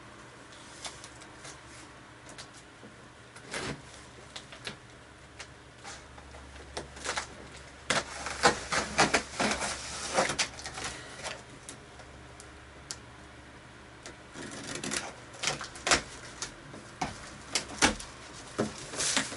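Knife cutting the packing tape along the top of a cardboard shipping box, with irregular clicks and scraping strokes and the cardboard flaps rubbing and knocking as they are pulled open. The work comes in two busy spells, one about halfway through and one near the end.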